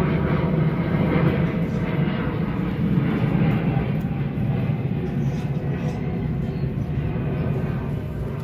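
Steady low engine rumble from a distant vehicle, easing off slightly near the end.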